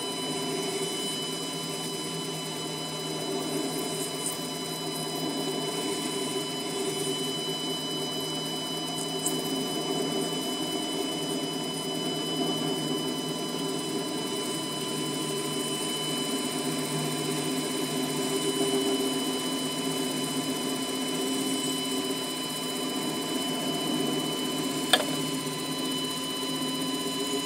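A 7x12 mini lathe running steadily, its motor and gear train whining at a constant pitch while the parting tool cuts stainless steel bar. A single sharp click comes near the end.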